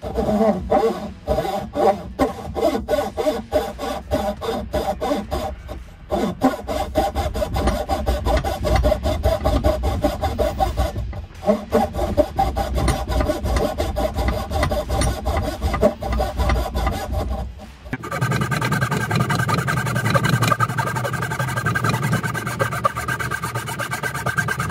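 Hand rip saw cutting down the grain of a wooden board held in a vise, in rapid, even back-and-forth strokes with a couple of brief pauses. About three-quarters of the way through, the sound changes abruptly to a steadier, denser rasp.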